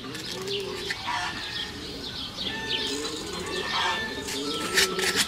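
Pigeons cooing over and over, with small birds chirping.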